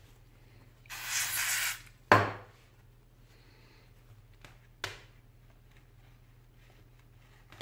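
Handling noise on a workbench: a hiss lasting about a second, then a sharp knock just after it, and a couple of light clicks later.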